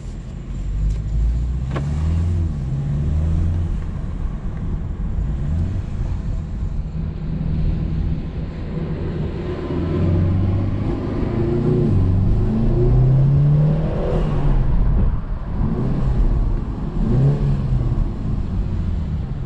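BMW 330i's turbocharged four-cylinder engine with its stock exhaust, pulling under acceleration: the engine note repeatedly climbs in pitch and drops back at the gear changes, mostly in the second half.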